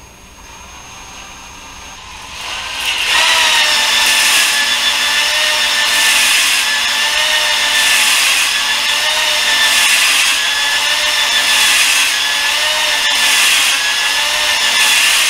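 Cordless drill spinning a ball-type flex hone inside a WD-40-lubricated engine cylinder of a Honda K-series block, deglazing the cylinder wall. It starts about three seconds in: a steady motor whine with a scraping rasp that swells and fades about every two seconds as the hone is stroked up and down the bore.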